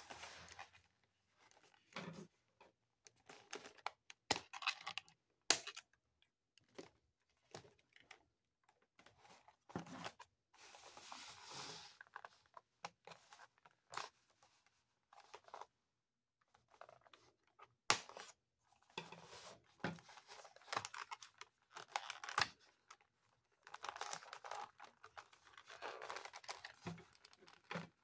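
Hands handling a boxed doll's packaging: the clear plastic window crinkles and the cardboard box rustles and tears in irregular spells, with scattered sharp clicks and taps.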